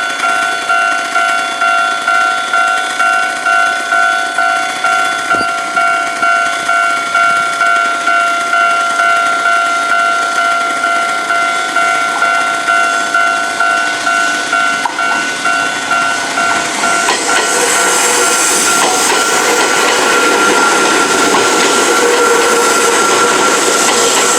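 Japanese railway level-crossing warning bell ringing, an electronic ding repeating about one and a half times a second. About 17 seconds in, the noise of a passing train rises and drowns it out.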